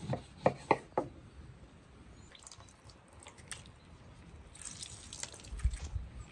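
A few sharp knocks on a wooden table in the first second, then lemon halves squeezed by hand, the juice dripping and splashing into a tray of liquid marinade.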